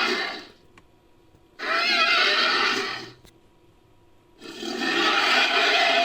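Made-up Skorpiovenator dinosaur calls built from edited creature sounds: the end of one call fades out, then a call of about a second and a half, then after a short silence another long call starts near the end. The calls are loud, with a wavering, whinny-like pitch.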